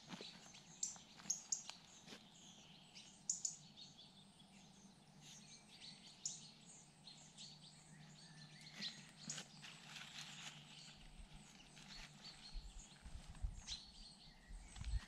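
Small songbirds chirping repeatedly, with faint rustling as moss and a plastic bag are handled, and a low bump just before the end.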